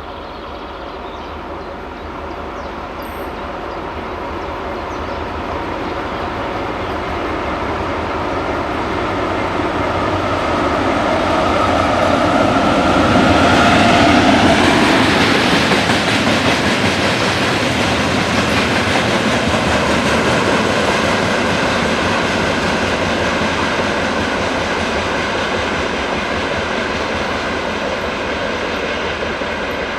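M62 diesel locomotive's two-stroke V12 engine approaching, passing and going away, growing louder to a peak about halfway through, then dropping in pitch as it passes. The train keeps rolling by afterwards with wheels running over the rails, slowly fading.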